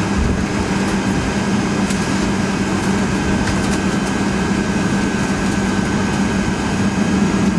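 Cabin sound of a Boeing 757-200 taxiing, its Pratt & Whitney turbofans running at low taxi thrust: a steady drone with a low hum and a thinner high whine.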